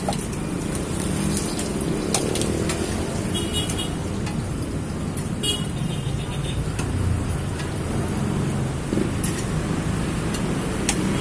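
Steady rumble of street traffic, with a few sharp clicks and short metallic clinks scattered through it: eggs cracked against a stainless steel mug and a spoon knocking inside it.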